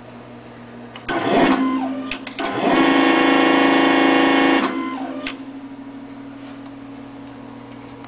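Rexa electrohydraulic actuator running its arm up: the brushless motor and gear pump whine briefly about a second in, then run with a louder steady whine for about two seconds before winding down. A steady low hum runs underneath.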